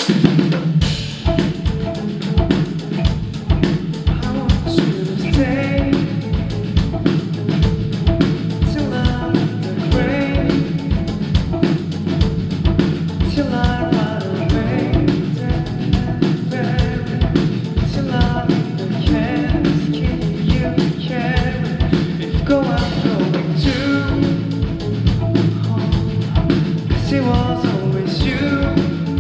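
Live rock band playing with drums, bass and guitars, with a singing voice over it, recorded loud from the concert floor.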